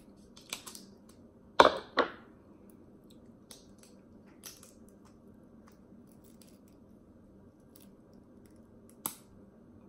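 Kitchen scissors snipping through a snow crab leg shell and the shell being cracked apart by hand: a few sharp cracks and clicks, the loudest two close together about a second and a half in, another near the end.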